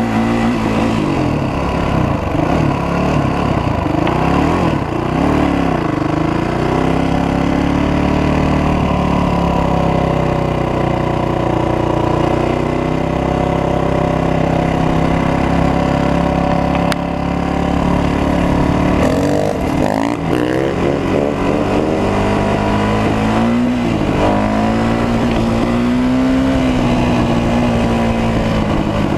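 Honda 450 dirt bike's single-cylinder four-stroke engine running under the rider, heard from on board. Its pitch rises and falls with the throttle, holds fairly steady through the middle, then revs up and down repeatedly in the last third.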